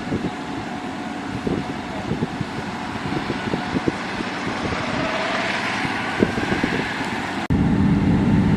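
Heavy road-construction machinery running, its engine noise mixed with irregular knocks and rattles. About seven and a half seconds in, the sound cuts abruptly to a louder, steady engine drone.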